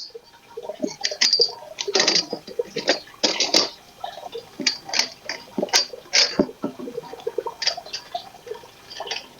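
Irregular knocks, sharp clicks and short scrapes as lengths of trellis frame are fitted together and pushed into clamps and end caps.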